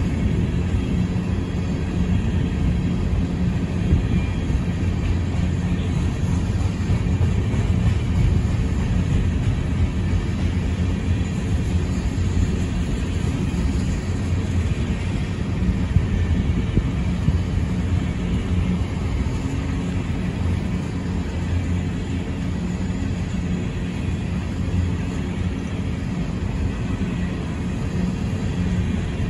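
Empty coal hopper cars rolling past: a steady low rumble of steel wheels on rail, with a couple of sharper knocks.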